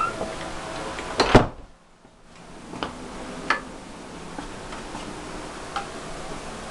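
Interior door knocking shut, a loud double knock about a second in, followed by a few light sharp clicks and knocks.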